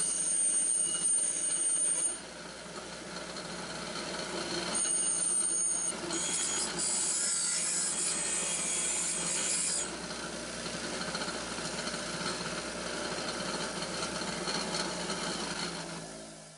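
Delta 6-inch bench grinder running with a wire brush wheel, the cut end of a corrugated stainless steel flex pipe held against it to take off the sharp edges. A harsh high scraping comes in stretches: for about the first two seconds and again from about five to ten seconds in. The sound fades out near the end.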